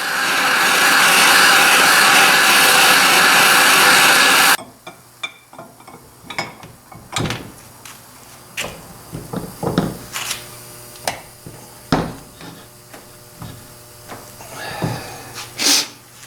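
Turbo torch flame hissing steadily and loudly. It cuts off suddenly about four and a half seconds in. Scattered light knocks and clicks of tools and metal being handled follow.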